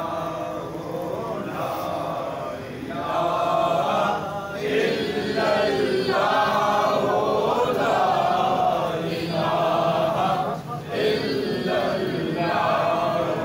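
A group of men chanting devotionally in unison, in drawn-out phrases with short breaks between them.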